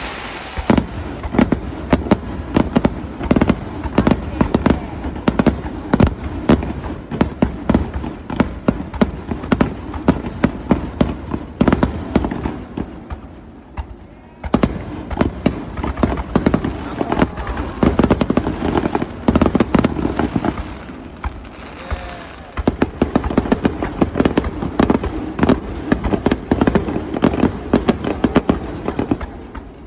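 Fireworks going off in rapid succession: a dense, continuous string of bangs and crackles from bursting shells, with a brief lull about halfway through.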